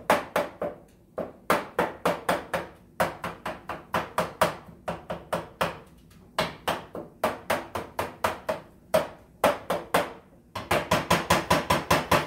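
Metal cooking utensil striking and scraping in a metal pan, chopping up a cooking ground-meat mixture: rapid sharp clacks with a short ring, several a second, coming faster near the end.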